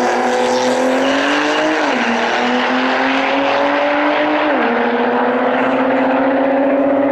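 Stock-turbo Nissan GT-R on E85 and a modified Porsche 997 Turbo S racing from a roll at full throttle, their engine pitch climbing steadily through each gear and dropping sharply at upshifts about two seconds in and again about four and a half seconds in.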